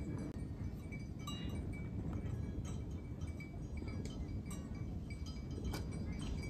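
Cowbells on grazing cattle clinking irregularly in short, light rings over a steady low rumble.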